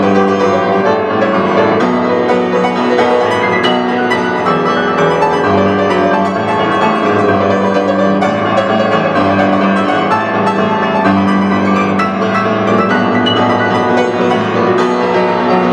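Grand piano played loud and full: many quick notes over held low bass notes, in the closing bars of a solo piano piece.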